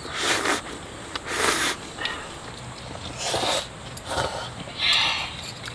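People slurping cup ramen noodles and broth: about five short, airy slurps spread through the few seconds.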